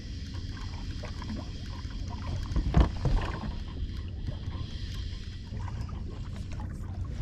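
Spinning reel being wound against the pull of a hooked fish, over steady low wind and water noise around a small boat. A single sharp knock about three seconds in is the loudest sound.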